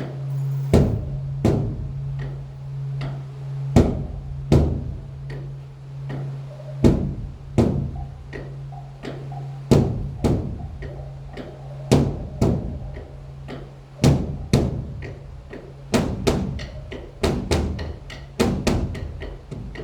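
Large Buddhist temple drum beaten with sticks in an uneven rhythm of heavy strikes and sharper clicks, over a steady low pulsing hum.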